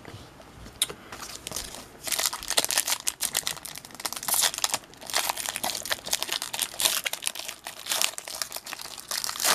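Trading-card pack wrapper being handled, crinkling in dense bursts from about two seconds in, after a couple of faint clicks.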